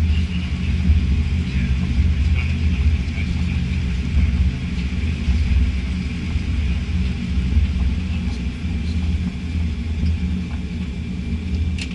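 Steady low rumble of a Boeing 787-9 airliner heard from inside the cabin: engine and airflow noise with no marked change.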